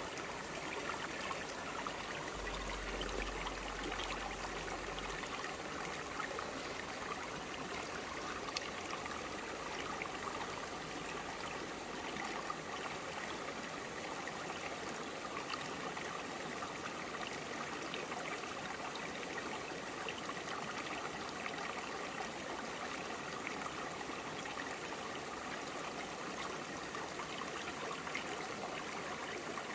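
Shallow forest stream flowing over broad, flat rocks: a steady babble of running water with many small splashes and trickles.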